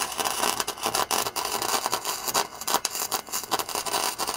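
Wire-feed welder arc crackling and sizzling steadily as a scrap steel strip is welded onto a metal door plate.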